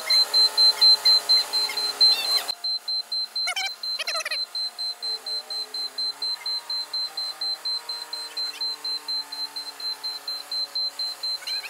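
Forklift warning beeper sounding continuously as a rapid, high-pitched electronic beep, about four beeps a second, while the machine is being positioned. A hiss underneath stops about two and a half seconds in.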